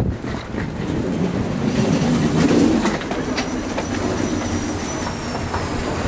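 A steady low rumble with scattered footsteps.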